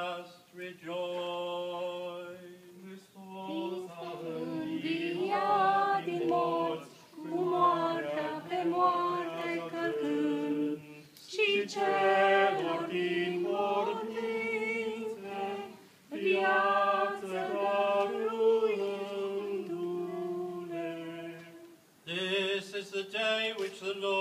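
Orthodox Easter liturgy chant sung unaccompanied: voices carry a melody in phrases over a steady held low drone note, with brief pauses between phrases.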